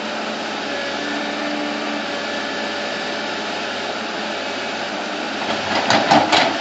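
Bulldozer engine running steadily, with a short cluster of louder knocks about a second before the end.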